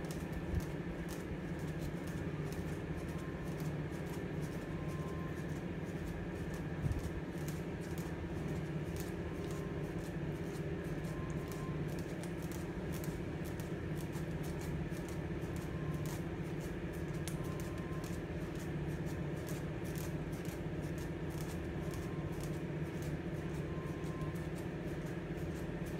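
Steady electrical hum and fan noise from running workshop machines, unchanging throughout.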